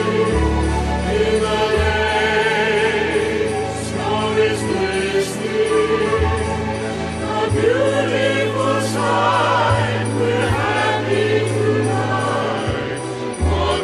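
Background music: choral gospel-style singing with a steady bass line.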